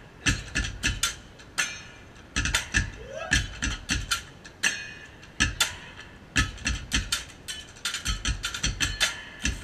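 Drummers beating sticks on a plastic barrel and other construction props: a fast, syncopated run of deep thuds mixed with sharp, bright stick cracks.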